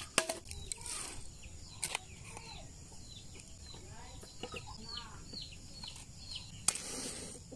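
Chickens clucking, with a string of short, high, falling chirps through the middle. Sticks of firewood knock together sharply three times: just after the start, about two seconds in, and loudest near the end.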